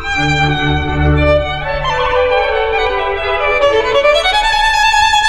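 Background music: a sustained instrumental melody that dips in pitch through the middle and climbs back up, over low notes that stop about two seconds in.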